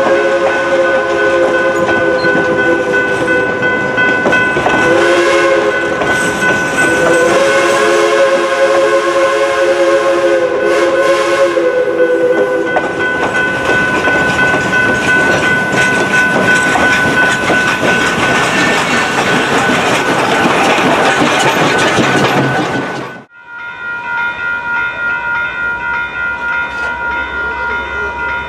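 Passenger coaches of a steam train rolling past close by, wheels clicking over the rail joints. Over this, the steam locomotive's whistle sounds several long blasts over the first twelve seconds or so. Near the end the sound cuts to a grade crossing, where the warning bell rings steadily as the gates come down.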